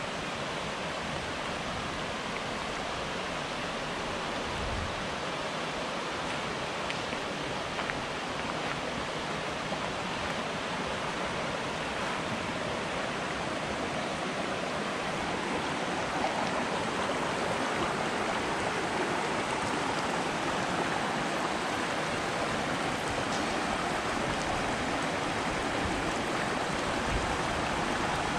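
Rushing creek water, a steady even rush that grows slightly louder.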